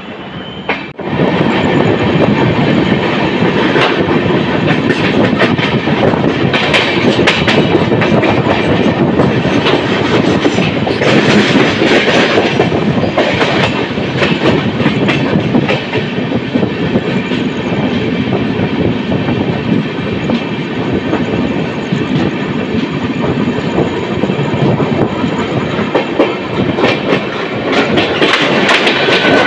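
Indian express train's coaches running out of the station, heard from an open coach doorway: a steady loud rumble with the wheels clattering over rail joints and points. It starts about a second in and grows harsher for a while around the middle and again near the end.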